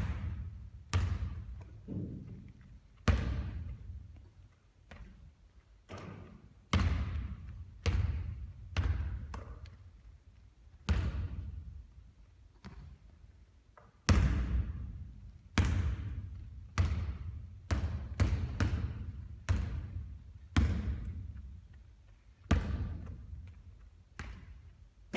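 Basketballs bouncing on a hard court during repeated three-point shooting: irregular sharp thuds about once a second, each trailing off in a long echo.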